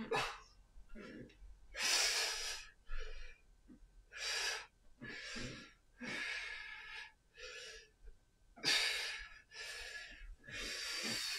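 A man breathing hard from exertion while swinging a clubbell, with loud rushing breaths in and out about once a second.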